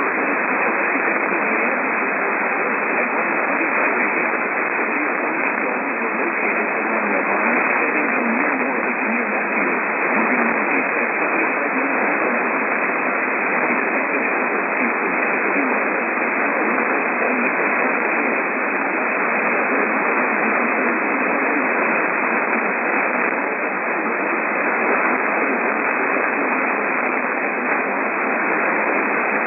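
Steady radio static hiss from a weather radio receiver on a weak or empty channel. It is thin and without highs or deep bass, and stays at an even level throughout.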